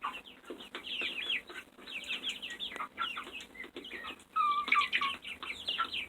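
A flock of chickens calling: many short, high, overlapping calls that fall in pitch, growing louder about four and a half seconds in.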